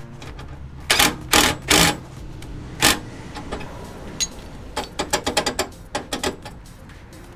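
DeWalt 20V cordless driver running the nut onto the stabilizer-arm bolt in four short bursts, then a run of sharp metal clicks and clinks about five seconds in.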